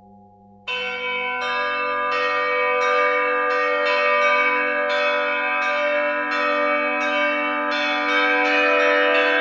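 Bronze church bells ringing in the Russian manner, struck in a steady run of roughly two strikes a second. Their ringing overlaps into a continuous peal. The peal begins abruptly under a second in, cutting across a fading lower ringing tone.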